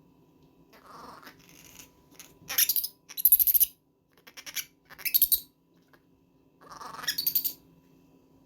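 Baby monkey screaming in a series of short, shrill cries, six or so, loudest in the middle. It is screaming to get the kittens to play.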